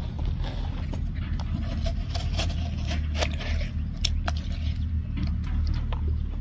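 Metal spoon scraping and scooping the flesh out of a hollowed watermelon, in irregular scrapes and clicks. A steady low rumble runs underneath.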